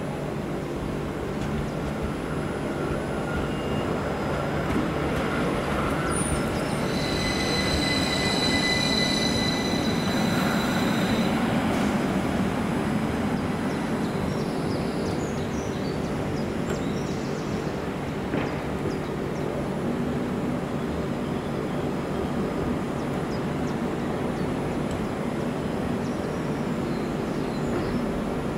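Northern electric multiple units, a class 333 and a class 331, moving slowly through the station with a steady electrical hum. About six seconds in, a high whine of several tones together sounds for about five seconds.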